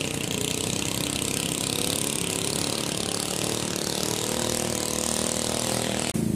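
Motorboat engine running steadily as the boat crosses the channel throwing spray, with a slight rise in pitch midway; the sound cuts off suddenly near the end.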